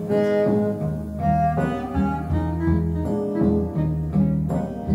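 A recorded song played back through Xavian Giulietta floor-standing loudspeakers: a short instrumental stretch of stringed instruments between the vocal lines.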